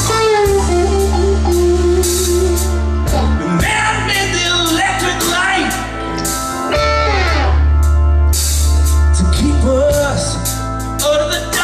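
Live blues band playing: a Stratocaster-style electric guitar plays bending lead lines over bass and drums, and a man's singing comes back in near the end.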